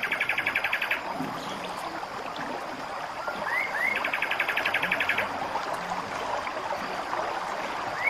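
A perched songbird singing: a fast, even trill of repeated high notes, about a second long, at the start and again about four seconds in, with two short rising chirps just before the second trill.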